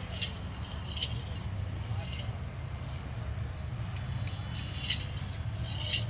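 Bells on a decorated bull's anklets and harness jingling in irregular bursts as it walks, over a steady low rumble.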